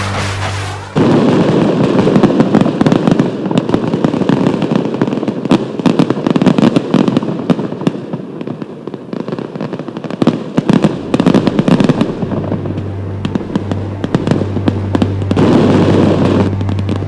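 Fireworks display: many shells bursting and crackling in quick succession, starting abruptly about a second in and going on almost without a break.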